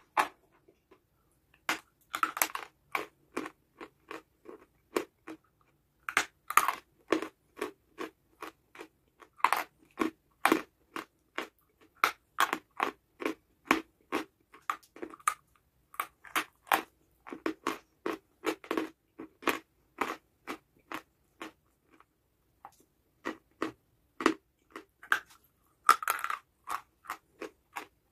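A person biting and chewing dry chalky clay, crisp crunches in runs with short pauses between.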